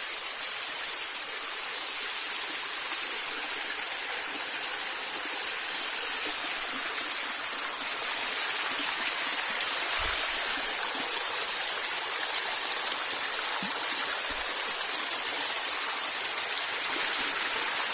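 Running water at a small waterfall, a steady rushing hiss that grows a little louder about halfway through.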